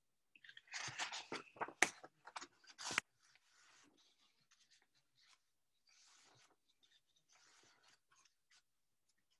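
Pages of a picture book being handled and turned: a quick run of crinkles and rustles for the first three seconds, then fainter page rustling.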